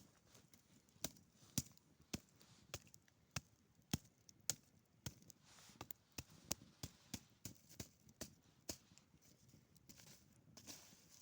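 Wood crackling in a campfire: irregular sharp snaps and pops, a few much louder than the rest.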